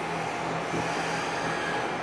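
Special drilling machine's electric motor running steadily, a constant hum with a steady whine over it.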